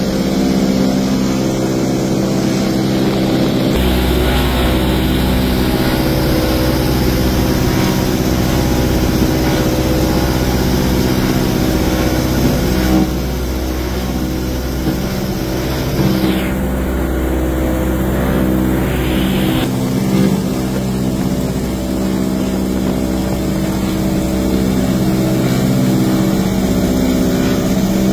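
Ford Tri-Motor's radial engines and propellers droning steadily in flight, heard from inside the cabin, with a constant rush of wind over it.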